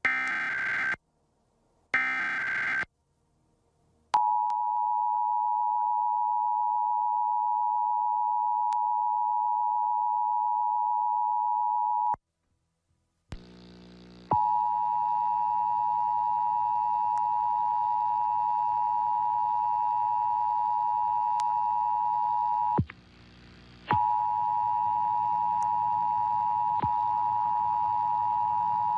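Emergency Alert System test signal: the last two of three short warbling SAME digital header bursts, then the EAS two-tone attention signal (853 and 960 Hz played together) held steady for about eight seconds. After a second's silence the two-tone returns over a low hum, drops out briefly about 23 seconds in, and resumes.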